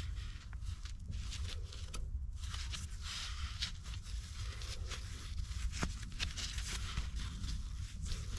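A hand tap turned in a tap wrench, cutting a new stud thread in the exhaust flange: irregular scraping and crackling of metal being cut, over a steady low rumble.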